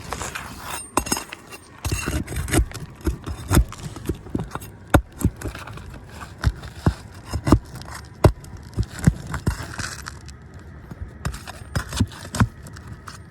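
Asphalt roof shingles being worked loose and pulled up from their nails: irregular sharp clicks and taps with a few stretches of scraping and rustling.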